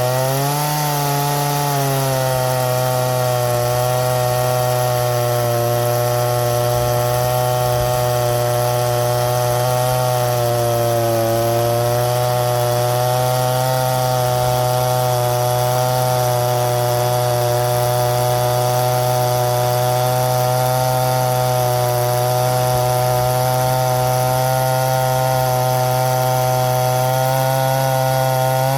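Two-stroke chainsaw running at full throttle, cutting through a log in one long steady cut. Its pitch sags briefly twice under load, about a second in and again around eleven seconds.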